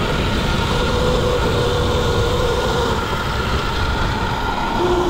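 Sur-Ron electric dirt bike coasting along a dirt trail: a thin whine from the electric motor and drivetrain slowly falling in pitch as the bike slows, over a dense rumble of wind on the microphone and rattle from the rough ground.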